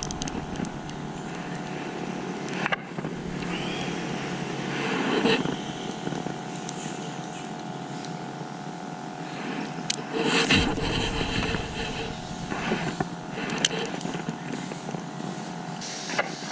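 An engine running steadily with an even hum, with a few brief louder noises over it.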